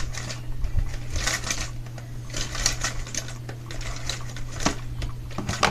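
Plastic blister pack on a cardboard backing card being handled, crackling and clicking in short irregular clusters over a steady low hum.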